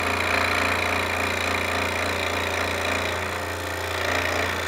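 Electric scroll saw running steadily, its reciprocating blade sawing through a piece of wood.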